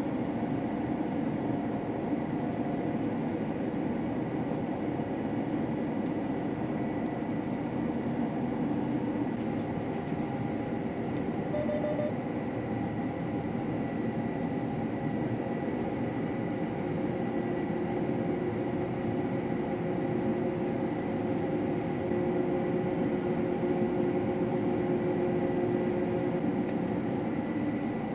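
Combine harvester running steadily under load, an even machine drone with a faint high steady whine.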